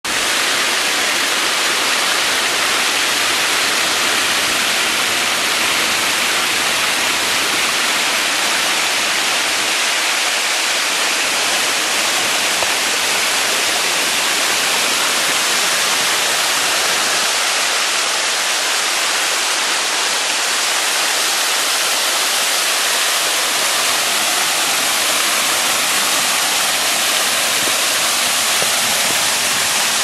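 Small waterfall pouring over rock into a pool: a steady, unbroken rushing hiss of falling water.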